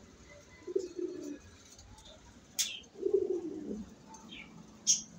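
Pigeons cooing: two low coos, about a second in and about three seconds in, the second falling in pitch, with a few short, sharp high sounds in between.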